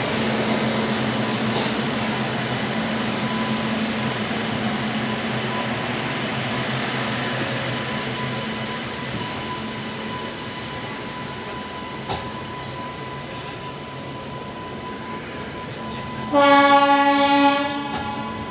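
ICF passenger coach running steadily along the track, a continuous rumble with a low hum and a single knock about two-thirds of the way through. Near the end, the hauling WAG-9H electric locomotive sounds one loud horn blast lasting about a second.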